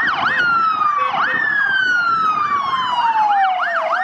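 Electronic police siren. Its pitch falls slowly over a second or two, then switches to quick rising-and-falling whoops, about three a second, near the end.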